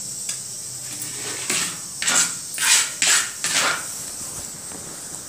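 About five short rustling clatters close together in the middle: a red plastic basket of raw mangoes being picked up and handled on a cutting board.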